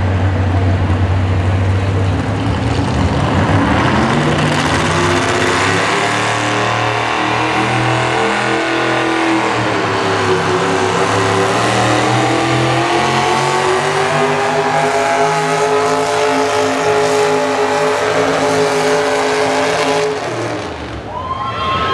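Modified V-8 engine of a pulling tractor running at full throttle under load as it drags the weight-transfer sled. The revs climb over the first few seconds and then hold, and the engine backs off near the end as the pull finishes.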